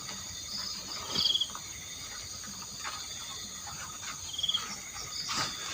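Insects chirring steadily in a forest at night, with a short pulsed trill repeating about every three seconds. A few sharp knocks are the loudest sounds, about a second in and again near the end.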